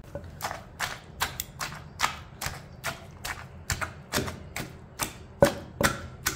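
Wooden pestle pounding raw marinated meat in a stone mortar, a steady run of strokes about two to three a second, to crush the meat for kuchla gosht.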